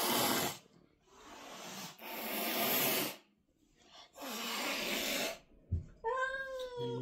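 Domestic cat hissing four times in long breathy hisses, a defensive warning. Near the end it breaks into a drawn-out, slightly falling yowl.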